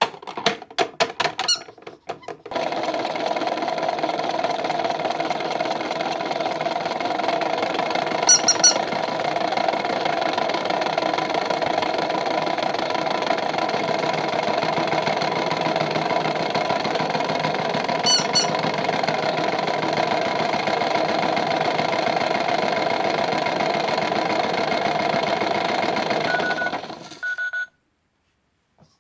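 Toy washing machine's small electric motor running with a steady whirring hum for about 24 seconds, then cutting off suddenly, after a few clicks and squeaks at the start.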